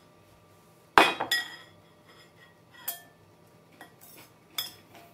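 A ceramic mixing bowl and its spoon clinking as the bowl is set down on the counter. A sharp, ringing clink comes about a second in, then four or so lighter clinks and taps.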